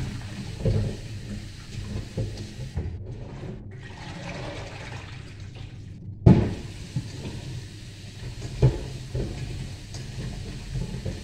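Kitchen tap running steadily into a metal pot in the sink while produce is rinsed by hand. A few knocks of the pot against the sink, the loudest about six seconds in.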